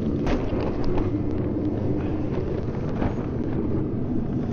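A 125,000 BTU forced-air torpedo heater running steadily, its fan and burner blowing heat under a tractor to warm the engine oil pan before a cold start. A few brief knocks or rustles sound over it, one near the start and one about three seconds in.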